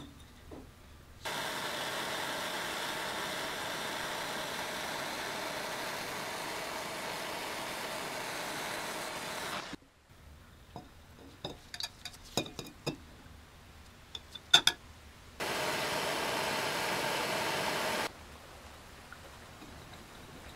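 Handheld gas torch burning with a steady hiss for about eight seconds while it heats a metal rod held in pliers, then cut off. Light clicks and taps follow, then a second, shorter steady hiss.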